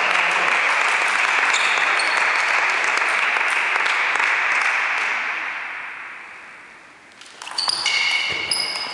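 Clapping that fades out over several seconds, then the sharp clicks and pings of a table tennis ball struck by rackets and bouncing on the table as a rally starts near the end.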